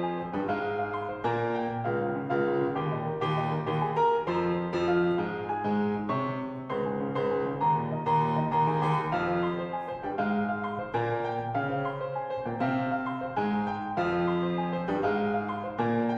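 Background piano music: a steady run of notes with no speech.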